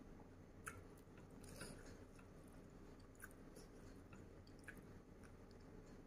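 Faint chewing of seafood with the mouth closed, with a few soft wet clicks spread through.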